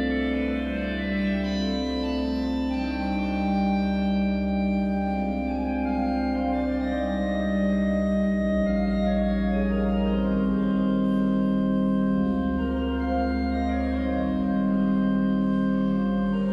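Organ music: a slow passage of sustained chords and a moving melody held over a deep pedal bass note, the bass note changing a couple of times.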